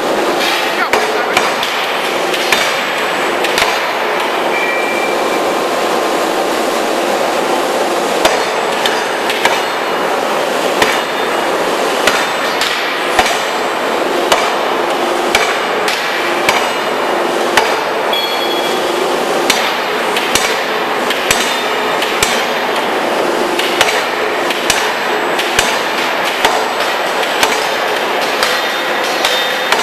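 Open die forging hammer striking repeatedly, with sharp blows coming irregularly about once a second over a steady loud machinery noise.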